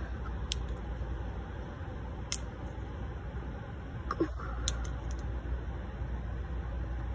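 Steady low rumble with a few sharp clicks, about half a second, two seconds and four and a half seconds in, and a brief squeak a little after four seconds.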